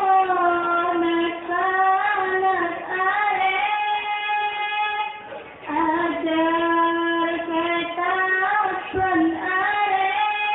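A young girl's high voice singing a sholawat melody, holding long notes, with a short breath pause about five seconds in.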